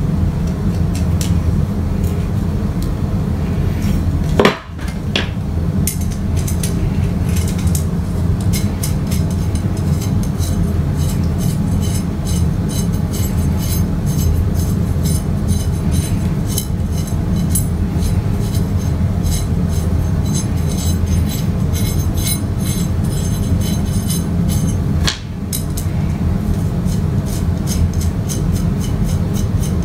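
Small metal hardware clicking and clinking over a steady low hum: steel nuts and washers knocking against each other and against threaded rods while nuts are screwed onto the rod ends. The clicks come thick and fast, with two sudden breaks, one about four seconds in and one near the end.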